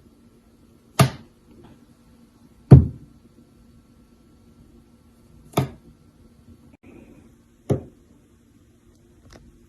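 A series of sharp knocks or thuds, four loud ones irregularly spaced one to three seconds apart and a fainter one near the end, over a faint steady low hum.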